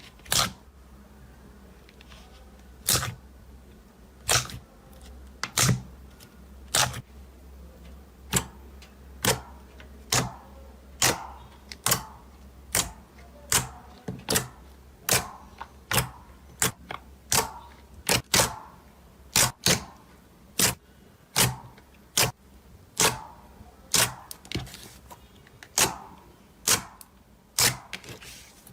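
Slime being pressed and worked by hand, giving a steady series of sharp, crisp pops. They come about once a second and quicken a little in the second half.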